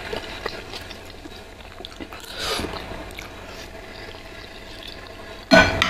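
Soupy spicy instant noodles (mie nyemek) being slurped and chewed close to the microphone, with small wet clicks of chewing and a short, louder wet sound near the end.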